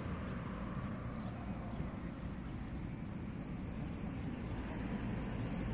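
Steady low-pitched outdoor rumble with no clear single source.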